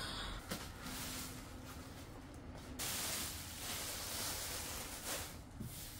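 Plastic bubble-wrap packaging rustling and crinkling as it is handled and pulled away, a little louder in the middle stretch.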